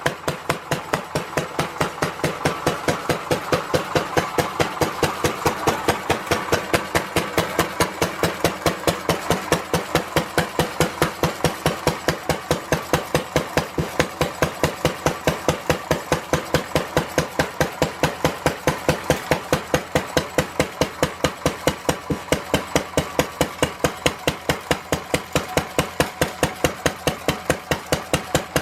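Lister D 1.5 HP single-cylinder stationary engine running steadily after repair, each firing stroke a sharp, even beat several times a second.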